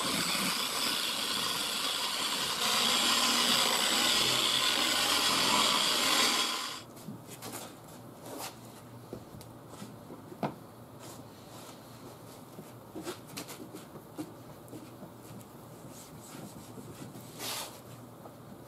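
A loud, steady mechanical whir with a faint high whine, which cuts off sharply about six and a half seconds in. After that, a microfiber towel rubs softly across a car's painted door panel, with scattered light taps and scrapes.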